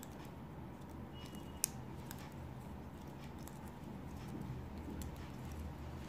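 Faint small clicks and handling sounds of a tatting shuttle and thread being worked into double stitches, with one sharper click about one and a half seconds in, over a low steady hum.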